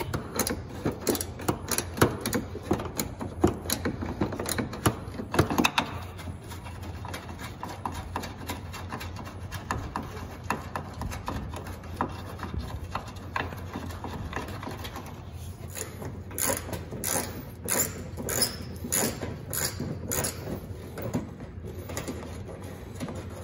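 Hands working behind a car's front bumper: irregular clicks, knocks and rustles of the plastic inner fender liner and bumper trim being pulled back and handled, over a steady low hum. A quicker run of louder clicks comes about two-thirds of the way through.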